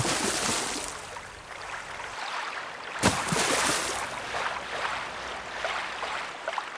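Rushing, splashing water in two surges: the second starts suddenly about three seconds in, then the noise thins and fades near the end.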